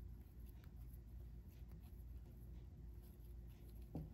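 Near silence: the faint rustle and light ticks of a steel crochet hook drawing size 10 cotton thread through stitches, over a low steady hum. One slightly louder soft tick comes near the end.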